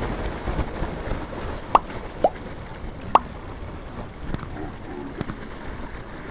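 Three short water-drop-like pops, each sweeping quickly up in pitch, about two to three seconds in, then a few sharp mouse-click sounds: the sound effects of a subscribe-button animation. They play over steady wind and sea noise on the microphone.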